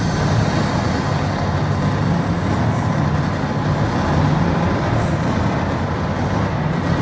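Steady low drone from an immersive light show's sound system, a deep hum under an even wash of noise with no distinct beats or events.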